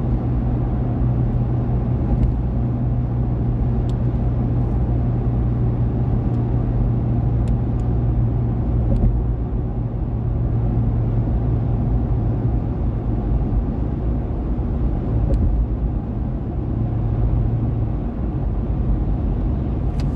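Road noise inside a moving car's cabin on a highway: a steady low drone of engine and tyres, its hum easing off near the end.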